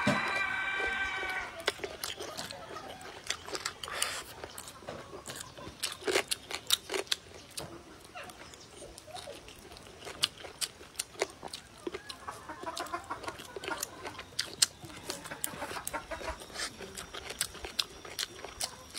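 Close-up eating sounds: chewing with many small wet clicks. A chicken calls in the background, briefly at the start and again about twelve seconds in.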